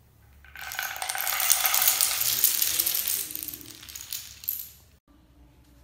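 Hundreds of toy dominoes toppling in a chain and clattering onto a hard tile floor: a rapid, dense rattle of small clicks that builds quickly, peaks, then thins out and stops.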